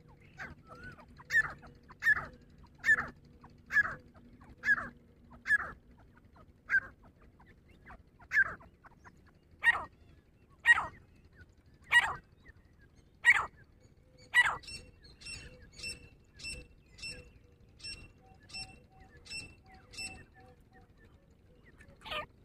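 Grey francolin calling: a series of loud, harsh calls, one roughly every second and growing louder. After about 14 seconds this gives way to a quicker run of shorter, fainter notes, about two a second. A last loud call comes near the end.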